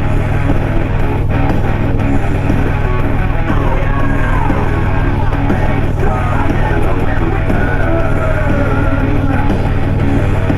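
Rock music with singing played through a Harley-Davidson Road Glide Ultra's aftermarket Soundz Customz Iron 65 fairing speakers, heard from inside a full-face helmet with the visor open at about 65 mph, over a steady low rumble of wind and engine.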